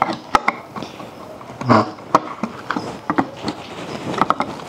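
Irregular clicks, taps and knocks of plastic slime-kit containers and tools being handled, with a duller thump about a second and a half in.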